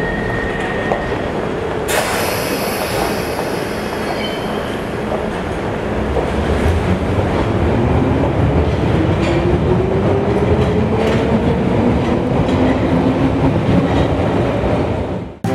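Metro train pulling out of an underground station: a brief high tone at the start, a sharp knock about two seconds in, then a whine rising steadily in pitch as the train picks up speed over a steady rumble, with clicks of the wheels on the rails.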